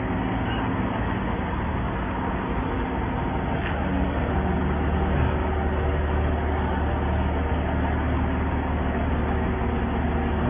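A Z-WC400B crawler hydraulic drilling rig running steadily, its engine and hydraulics humming. The low hum gets louder about four seconds in, as if the rig has been put under more load.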